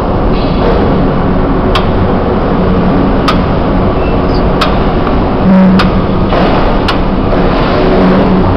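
Scissor-type motorcycle lift rising under a scooter: a steady rushing noise with sharp clicks about every second and a quarter, five in all, typical of the lift's safety lock catching as the platform climbs.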